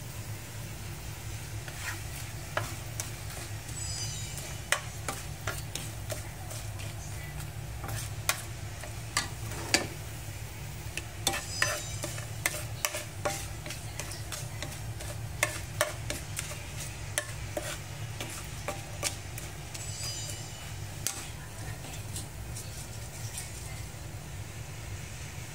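Whole spices (cumin seeds, cinnamon sticks, bay leaves and cardamom) sizzling in hot oil in a frying pan, stirred with a wooden spatula: the tempering stage of jeera rice. Frequent sharp pops and clicks over a steady low hum.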